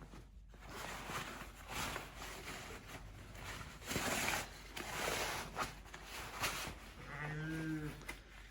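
Ewes being driven along: scattered rustling and shuffling noises, and one ewe bleating once, briefly, about seven seconds in.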